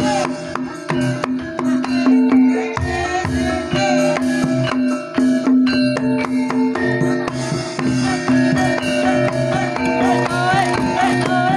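Javanese jaranan-style gamelan music accompanying a buto gedruk dance: quick drumming and struck metal percussion over steady held tones, with a wavering melody line coming in from about eight seconds in.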